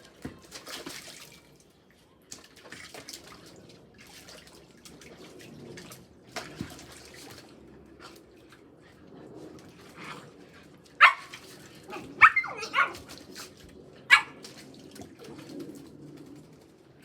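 Puppies splashing and playing in water, with about four short, loud barks in the second half.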